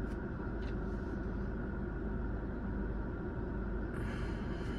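Steady low rumble of idling vehicle engines, heard from inside a car waiting at a traffic light. A faint hiss comes in near the end.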